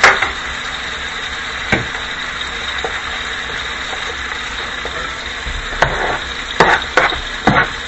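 Food sizzling steadily as it fries in a hot skillet, with a few sharp knocks and clinks of a utensil against the pan, a cluster of them near the end.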